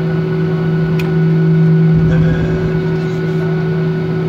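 Steady cabin hum of a Boeing 737-800 taxiing with its engines at idle, a constant low drone with a higher whine on top. A single sharp click sounds about a second in.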